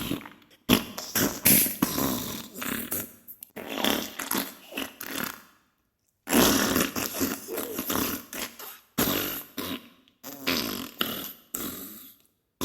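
Diarrhea sound effect: bursts of fart sounds made of rapid crackling pulses, broken by several short silent gaps, the longest a little before halfway through.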